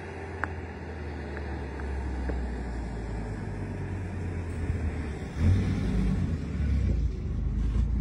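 A low, uneven outdoor rumble that grows louder, with a sudden swell about five and a half seconds in.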